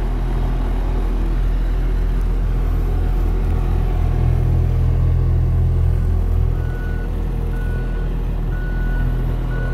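Tandem double-drum asphalt roller running, its diesel engine a steady low rumble. About two-thirds of the way through the rumble eases and a back-up alarm starts beeping about once a second.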